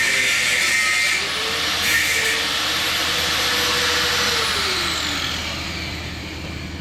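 Power tool with a cut-off wheel running as it cuts through a water heater's brass pressure relief valve. A little past four seconds in, the motor's tone falls steadily and the sound dies away as it spins down.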